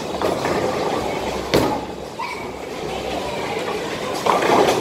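Ten-pin bowling ball released onto the lane with a sharp thud about one and a half seconds in, rolling down the wooden lane with a steady rumble, then crashing into the pins near the end.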